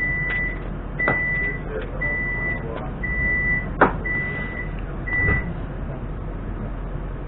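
Door-closing warning beeps on a suburban electric train standing at a platform: six short, even, high beeps about a second apart, with a sharp clack just before the fifth beep.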